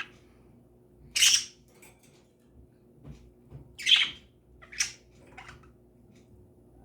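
Pet bird squawking: four short, harsh calls, the first about a second in, then three close together near the middle, the last one weaker.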